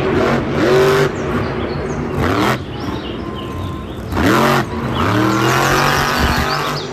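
Blue Thunder monster truck's supercharged V8 engine revving hard, its pitch climbing about three times between steadier running.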